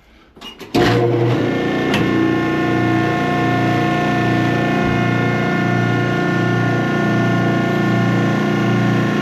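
Oil-hydraulic machine's motor and pump starting suddenly about a second in, then running with a steady hum and a slight pulsing; a sharp click about a second after it starts.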